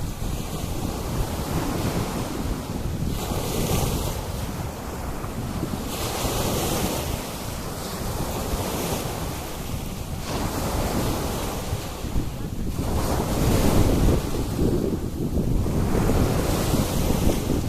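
Sea waves breaking and washing up a beach, swelling and fading every few seconds, with wind buffeting the microphone as a steady low rumble.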